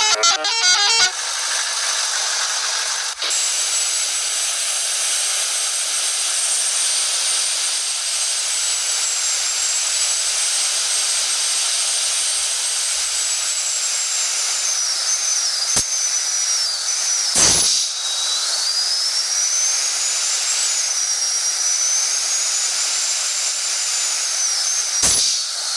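A bus telolet multi-tone air horn finishes its tune about a second in. A loud, steady hiss follows, with a faint high whistle wavering up and down, broken by a few brief louder bursts.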